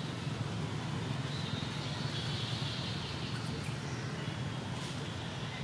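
Steady outdoor background noise: a constant low rumble with a high hiss over it, and a couple of faint clicks past the middle.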